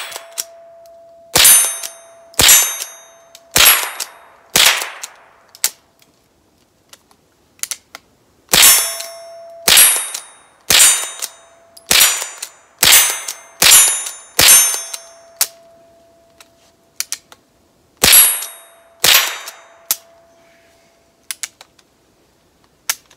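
Rossi pump-action .22 LR rifle fired in quick succession, about a dozen sharp shots roughly a second apart in three strings, each hit setting the steel targets ringing with a steady metallic tone. A few softer clicks of the action come near the end.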